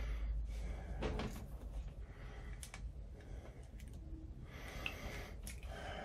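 Faint, scattered clicks and handling noise as multimeter probe tips are pressed against the screw terminals of a new three-way light switch during a continuity test, over a low steady rumble.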